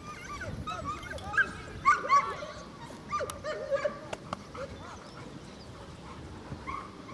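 Dogs yelping and whining: a rapid string of short, high yips that is busiest in the first few seconds and thins out after about four seconds, with a few sharp clicks mixed in.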